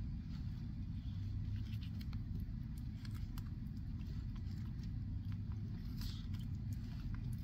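Sulcata tortoises biting and chewing lettuce leaves, heard as scattered faint crisp snaps, over a steady low rumble.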